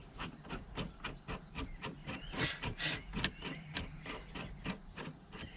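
Steady run of short, even clicks, about four or five a second, from a hand ratchet being worked to thread in and tighten a steering wheel puller's bolts.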